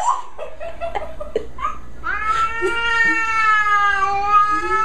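A domestic cat calling: a few short meows, then one long drawn-out yowl beginning about two seconds in.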